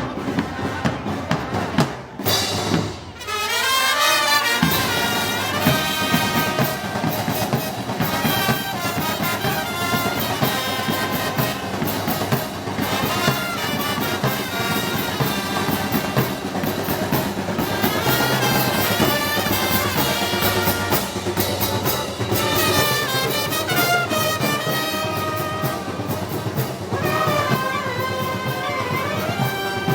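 Brass band playing Moros y Cristianos festival music: trumpets and trombones over drums and percussion, with a short break about three seconds in before the band carries on.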